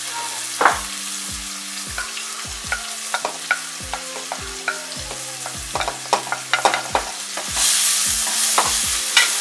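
Chopped onions sizzling as they fry in hot oil in a nonstick pan, with clicks and scrapes as more onion is tipped in from a plate and stirred with a wooden spoon. The sizzle gets louder near the end.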